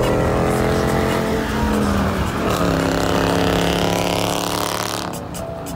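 Dodge Challenger's engine and exhaust running hard at high revs as the car drives close alongside, its pitch stepping down once about two and a half seconds in.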